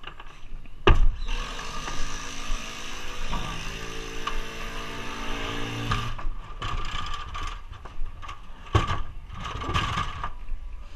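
DeWalt cordless impact driver hammering as it drives a screw into wood framing: one long run of about five seconds starting about a second in, then a couple of short bursts near the end.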